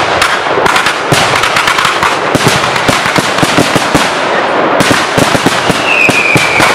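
Finale barrage of a large professional fireworks display: shells and salutes firing and bursting in a dense, unbroken run of bangs and crackles, several a second. A steady high whistle comes in near the end.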